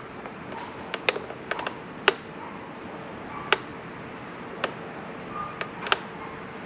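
Fiberglass boat hardtop being handled and lifted: scattered sharp knocks and clicks, about five of them, with a few faint creaks over a steady faint hum.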